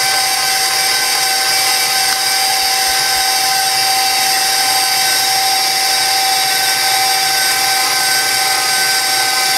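KitchenAid stand mixer running steadily with its wire whisk attachment, beating cream cheese and butter for frosting: an even motor whine.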